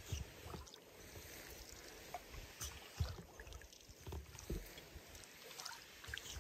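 Quiet canoe paddling from a Pakcanoe 150 folding canoe: faint dips and drips of water from the paddle, with a few soft, low knocks scattered through.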